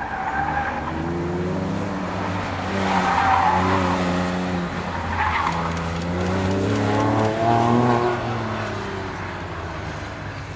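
2008 Porsche 911 Turbo's twin-turbo flat-six, a wailing growl, revving up and falling back again and again as the car is driven hard through autocross cones, with the tyres squealing briefly in places. It grows fainter over the last couple of seconds as the car moves away.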